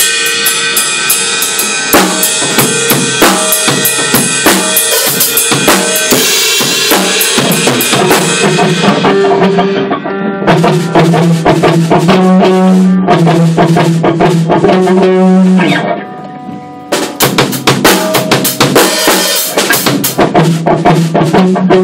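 A band playing loudly: a drum kit with cymbals and snare driving a steady beat under bass and electric guitar. About sixteen seconds in, the band drops out for about a second, then comes crashing back in.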